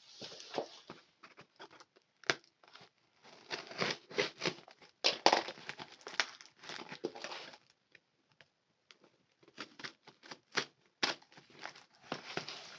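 Packaging being handled and opened by hand: irregular crinkling and rustling with sharp clicks and snaps, and a short lull in the middle.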